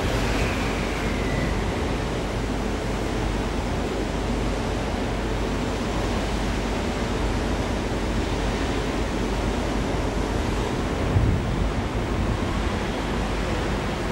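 Steady rushing noise like wind on the microphone, with a faint falling squeal early on and a brief low thump about eleven seconds in.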